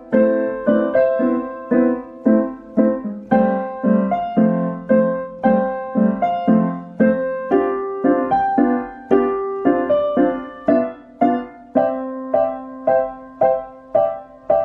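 Digital piano played with both hands: a repeated left-hand chord pattern under a right-hand melody, in a steady stream of notes at about two a second.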